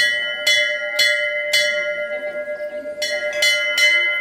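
Metal temple bell struck repeatedly, about twice a second, with a long ringing after each stroke. There is a short pause in the middle, then three more strokes near the end.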